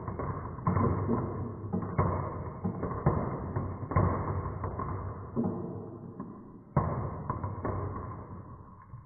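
Marbles rolling and clattering down a wooden marble run: a muffled rolling rumble broken by repeated knocks, with a fresh burst of clatter every second or two that then fades off.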